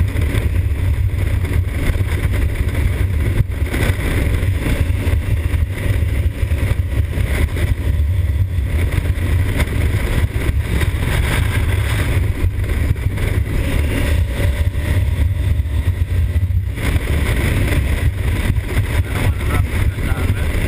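2020 Honda Africa Twin's 1084 cc parallel-twin engine running at a steady cruise on the road, mixed with heavy wind rush on the microphone.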